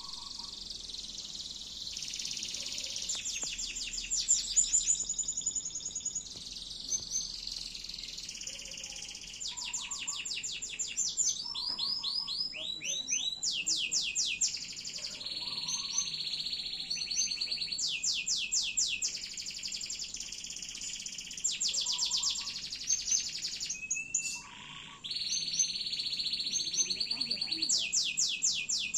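Domestic canary singing a long, almost unbroken song of rapid rolling trills and repeated high notes, changing phrase every second or two, with one short pause about 24 seconds in.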